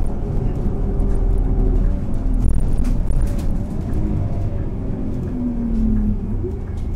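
Scania K230 UB city bus's diesel engine running, its note shifting in pitch, with a rising whine near the end and a few light rattles.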